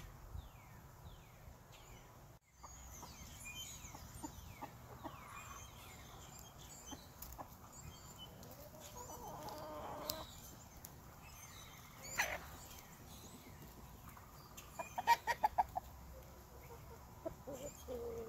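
Domestic chickens clucking in a flock, with a quick run of about six loud clucks some fifteen seconds in.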